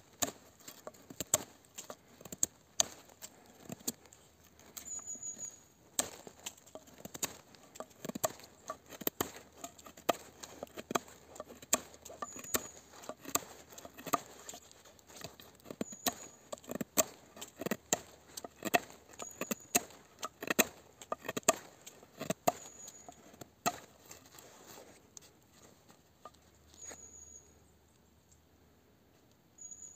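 Tonife Nova fixed-blade knife whittling a wooden stick: quick, irregular scraping strokes and clicks as the steel edge shaves and cuts into the wood. The strokes thin out and quieten near the end.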